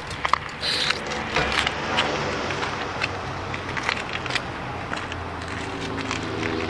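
Scattered light metallic clicks and rattles from a bicycle chain and rear derailleur being handled. From about five seconds in, a motor vehicle's steady low hum joins them.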